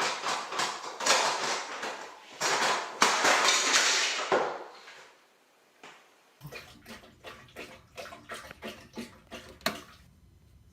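Water splashing and sloshing in a bathtub for the first few seconds. After a short pause comes a run of light clicks and knocks.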